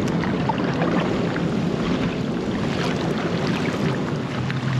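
Steady wind and water noise around a kayak on open water, with scattered light splashes and ticks. A faint low hum runs underneath and grows louder near the end.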